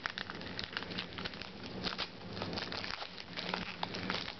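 A pack of trading cards being opened and handled: a run of quick, irregular crinkles and crackles from the wrapper and the cards.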